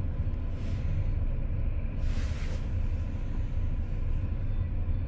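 Steady low vehicle rumble with a faint engine hum, broken by two brief hisses, a short one about half a second in and a stronger one about two seconds in.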